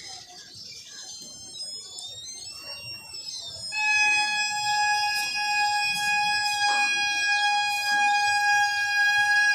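Needle-type satellite finder meter's buzzer: faint wavering high tones, then about four seconds in a loud steady beep tone, the sign that the dish has come onto the satellite's signal.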